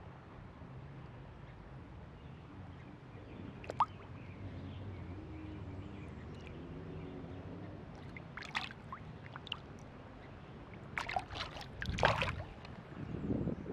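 Small splashes and drips of river water as a landed smallmouth bass is handled in the water beside a landing net, over a steady low rush of the river. A few short splashes come near the middle, and the loudest cluster comes near the end, as the hand and fish go into the water.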